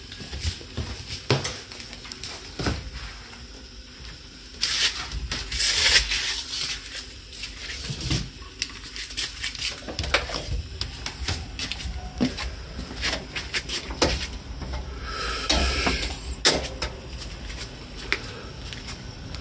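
Clicks, knocks and rustling as a front door's lock and lever handle are worked by hand and the door is opened, with a few footsteps.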